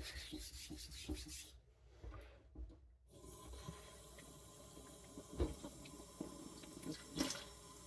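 Hard steel knife blade rubbed in short strokes across a fine Kitayama whetstone, a soft gritty scraping. It stops for a moment about a second and a half in, then goes on more faintly, with a couple of light taps.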